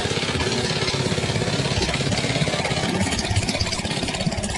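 Small lawn-mower-type gasoline engine running steadily at a fast, even beat, driving the HVAC blower fan that inflates a homemade hovercraft's air-mattress skirt.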